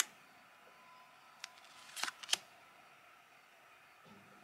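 Light clicks and a brief rustle of nail decal sheets and their packaging being handled, the loudest pair about two seconds in.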